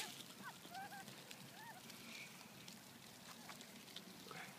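Faint, soft duck calls: several short notes that rise and fall, bunched in the first two seconds.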